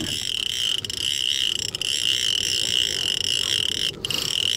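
Accurate two-speed conventional fishing reel being cranked in low gear against a heavy striped bass, a steady high mechanical whir from the reel, with short breaks about four seconds in.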